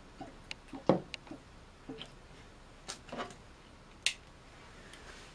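Light knocks and clicks of small objects being handled on a wooden bench. A plastic measuring jug is set down with the loudest knock about a second in, and a sharp click comes just after four seconds as a pen-type pH meter is picked up.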